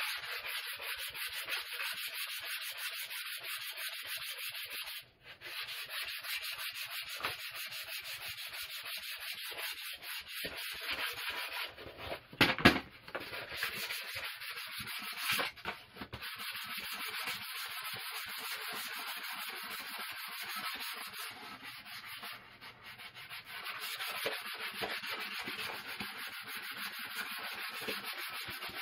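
Sandpaper rubbed fast back and forth along a wooden axe handle, hand-sanding it to shape. The scratching runs almost without a break, stopping briefly about five seconds in, with a few sharp knocks around halfway through.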